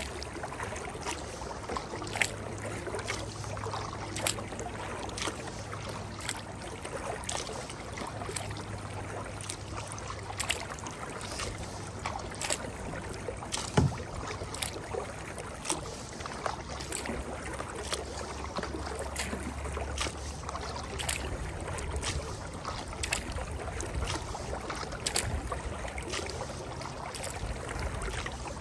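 Kayak paddling: the paddle blades dip and splash in the water at an uneven pace of about one or two strokes a second, over a steady wash of water and wind. About halfway through there is one louder knock.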